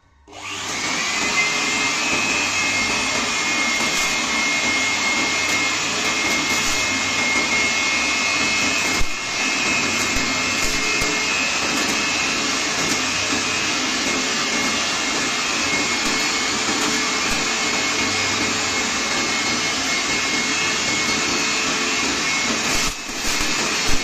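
Handheld 600-watt electric blower working as a vacuum cleaner: its motor switches on and spins up within about a second, then runs steadily with a high whine while it sucks up rice grains. The sound dips briefly twice.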